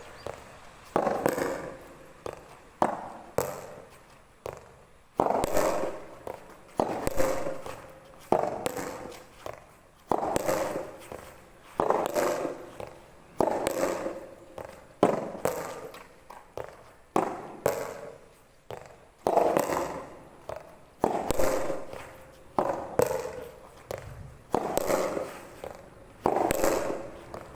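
Soft tennis rackets striking a rubber soft tennis ball again and again, about one hit a second, each hit a sharp pop with a short ringing tail.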